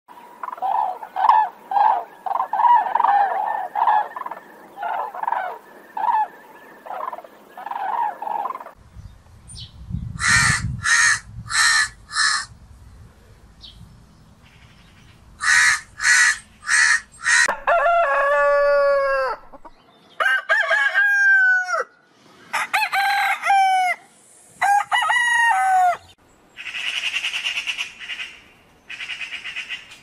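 A succession of different bird calls: a flamingo flock's rapid honking, then sets of four harsh crow caws, then several long calls that fall in pitch, and a harsh rattling chatter near the end.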